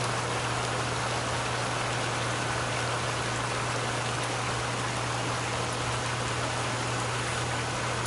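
Liquid nitrogen boiling against a photomultiplier-array mock-up as it cools, a steady rain-like hiss, over a steady low hum.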